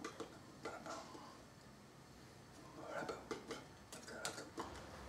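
Hands tapping and brushing against each other and against a shirt as a person signs in sign language: scattered soft clicks and rustles, more frequent from about three seconds in.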